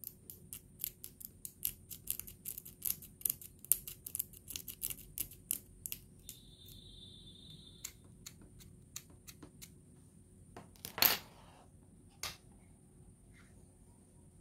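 A blade tip scraping at a circuit board's copper track, a quick run of sharp little scratches for about the first eight seconds, as the coating is scratched off to test the track for supply. A brief high steady tone sounds near the middle, and a louder short noise comes about eleven seconds in.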